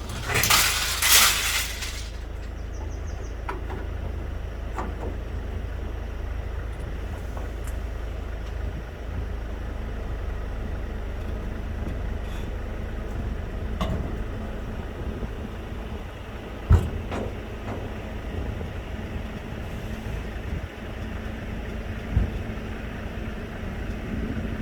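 A vehicle engine running steadily at idle with a low rumble, opening with about two seconds of loud hissing noise and broken by a few sharp metallic knocks later on.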